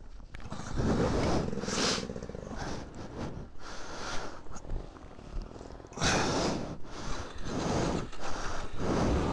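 Suzuki DR-Z400's single-cylinder four-stroke engine running at low revs, getting much louder under a second in. Several short rushes of noise come through over it.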